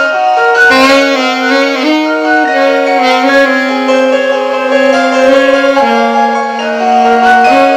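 Alto saxophone playing a slow melody of long held notes that step up and down in pitch.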